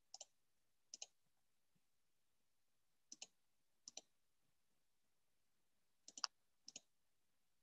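Faint computer mouse clicks, six of them in three pairs, each pair well under a second apart, as a drop-down menu is opened and an option is chosen each time.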